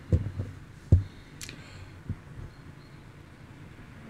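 A few short dull knocks, the loudest about a second in, and one short sharp click, over faint room noise.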